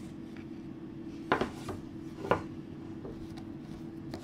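Wooden 10 mm knitting needles clicking against each other while purling stitches in super chunky yarn: a few light taps, the two clearest about a second apart, over a faint steady hum.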